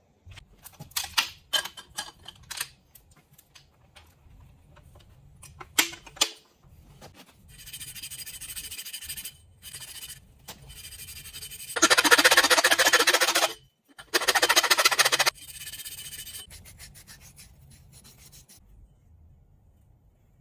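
Copper pipe and fittings being cleaned with an abrasive, rasping strokes of metal on metal, with scattered clicks and clinks of the parts and tools being handled. The rubbing is loudest in two long bursts just past halfway.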